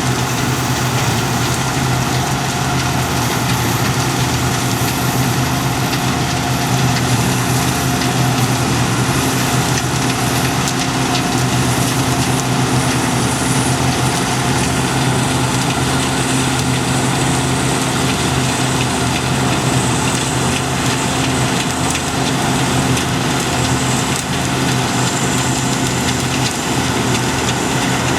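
Combine harvester running steadily: a constant diesel engine drone with machinery noise layered over it, unchanging throughout.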